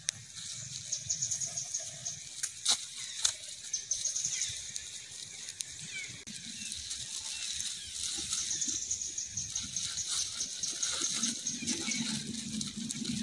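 Outdoor ambience with a steady, high-pitched trilling in the background and faint rustling, broken by two sharp clicks about three seconds in.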